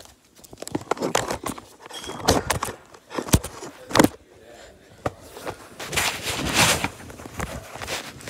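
Handling noise: the recording device's microphone rubbing and bumping against clothing as it is carried or covered. Irregular knocks and clicks come throughout, with a longer stretch of rustling a little past the middle.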